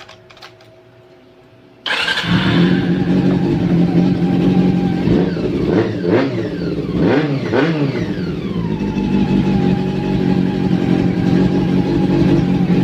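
Honda CB400 Super Four's inline-four engine starting about two seconds in, catching at once, then blipped through several quick revs before settling to a steady idle: the hard-starting fault is cured.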